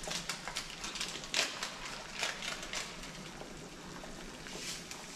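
A powdered juice sachet crinkled and torn open by hand, a run of sharp crackles over the first three seconds, over a pot of water at a rolling boil.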